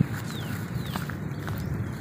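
Footsteps walking along a dry grassy path over a steady low rumble. A few faint, high, falling bird chirps come near the start and again a little under a second in.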